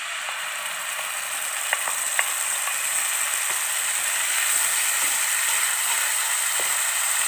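Ground red spice paste sizzling steadily as it fries in hot oil in a nonstick wok, stirred with a wooden spatula, with a couple of light clicks about two seconds in.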